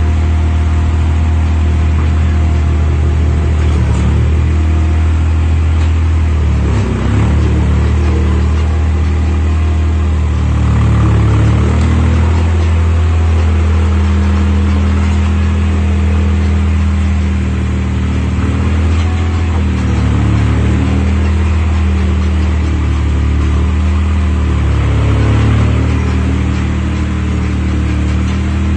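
Diesel engine of a Komatsu WA30-2 mini wheel loader running continuously, its speed rising and falling several times.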